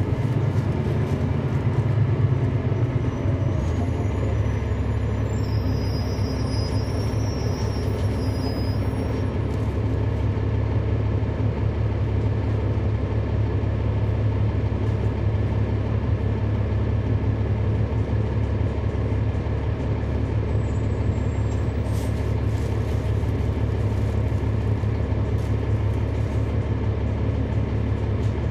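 Cummins ISL9 diesel engine of a NABI city bus heard from inside the cabin, running steadily as a deep drone. Its engine note shifts lower about three to four seconds in.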